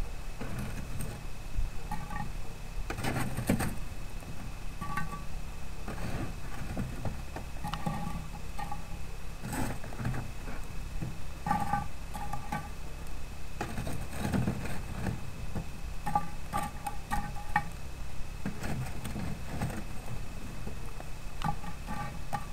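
Metal tongs picking up charcoal briquettes and setting them on a cast-iron camp oven lid: irregular clinks and knocks, some with a short metallic ring.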